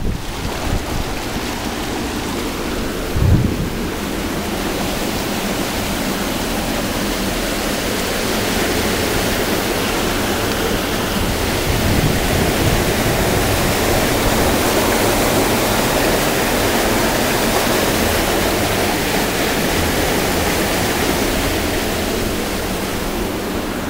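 Storm rainwater rushing along a flooded street gutter, mixed with falling rain, as a steady, even wash of noise that swells slightly partway through. A brief low rumble, like a gust on the microphone, about three seconds in.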